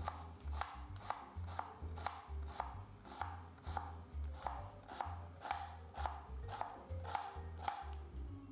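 Kitchen knife finely chopping white onion on a cutting board in steady strokes, about two a second.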